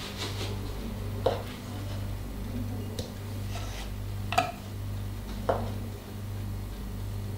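Metal cocktail shaker tin clinking four times, a second or so apart, as fresh raspberries are put into it one by one, each with a short metallic ring. A steady low electrical hum runs underneath.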